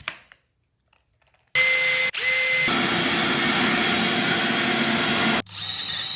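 Power drill boring pilot holes through a Kreg jig into a wooden door: after a short silence it runs steadily for about four seconds with one brief break, stops, then runs again briefly at a higher pitch.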